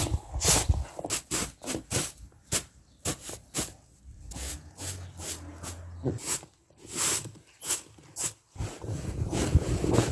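Straw broom sweeping snow across a rug: a run of quick, irregular swishing strokes. Near the end comes a denser, continuous rustle as the rug is lifted and turned over on the snow.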